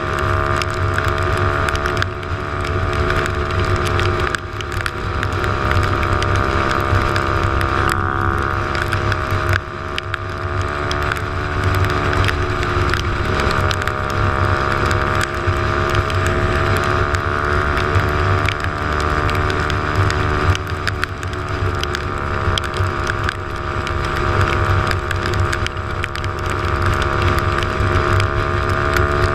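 Motorcycle engine running steadily at highway cruising speed, its pitch drifting only slightly with no hard revving. Wind buffets the microphone, and there is a steady hiss of spray from the wet road.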